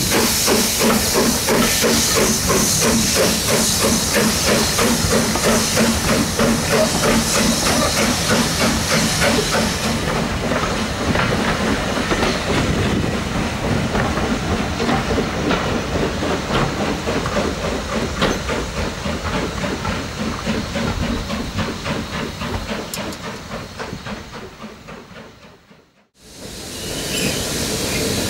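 BR Standard Class 9F 2-10-0 steam locomotive No. 92203 passing with steam hissing from around its cylinders, loudest in the first ten seconds. Its coaches then roll by with a rhythmic clatter of wheels that slowly fades away. The sound cuts out near the end and a different, steady noise begins.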